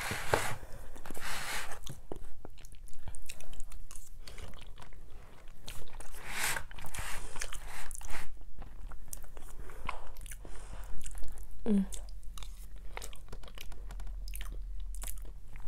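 A person chewing and biting food close to the microphone: wet mouth sounds and irregular small clicks and smacks.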